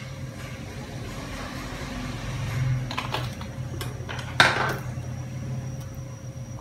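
Kitchenware being handled over a bowl: a few light clinks and knocks, then one sharp knock a little past the middle followed by a short rustling rush, over a steady low hum.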